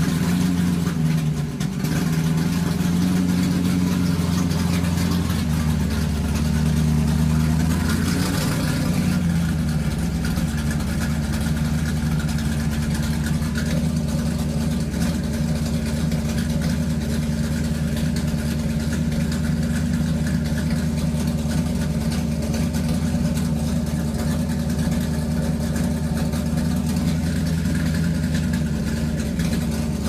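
Motorcycle engine running: its pitch rises and falls with light revs over the first ten seconds or so, then it settles into a steady idle.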